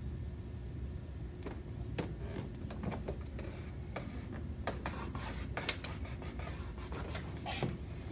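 Fingers rubbing and pressing a self-adhesive plastic membrane overlay down onto a treadmill console panel: scattered soft scrapes and small crackles, busiest in the second half, over a faint low hum.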